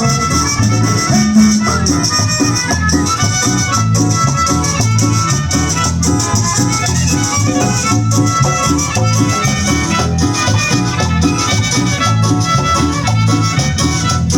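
Instrumental cumbia music with a steady beat and melody, no singing.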